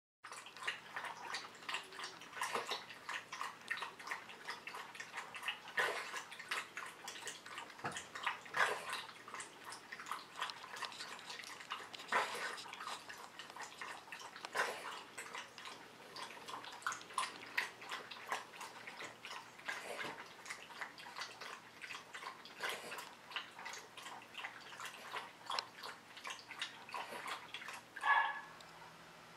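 Miniature Pinscher lapping water from a stainless steel bowl: quick, irregular wet laps and clinks, several a second. A brief pitched sound comes near the end.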